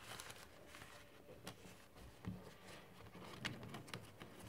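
Faint soft taps and rustles of playing cards being handled on a tabletop, with a few quiet clicks.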